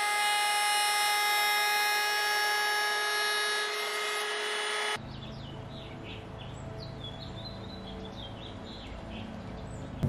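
Router table motor spinning a flush-trim bit at full speed while a spruce strip is trimmed against it: a loud, steady whine made of many held pitches. It cuts off abruptly about halfway through, leaving a faint low hum with a few short high chirps.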